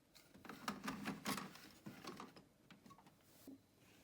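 Quick clicks and light plastic rattling from the cleaned print head being fitted back into a Canon Pro9500II printer, busiest in the first two seconds, then a few scattered ticks.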